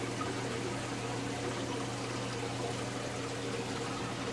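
Aquarium water circulating with a steady running, trickling rush, over a steady low hum.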